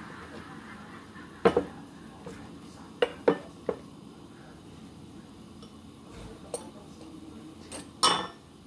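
Ceramic bowls and dishes being set down and moved on a tray: separate sharp clinks and knocks, a cluster of them about three seconds in and the loudest near the end.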